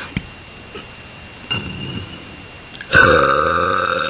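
A person burping on purpose: one long, loud burp starts about three seconds in and holds its pitch, a pretty good one.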